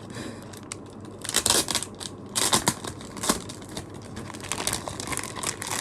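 Packaging crinkling and rustling as unboxed merchandise is handled and packed back into its box, in several irregular bursts. The loudest bursts come about one and a half and two and a half seconds in.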